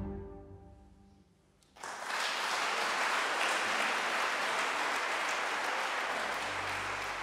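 The last low notes of a bowed-string piece, with cello and double bass, fade away. After a moment of near silence an audience breaks into applause that keeps up steadily.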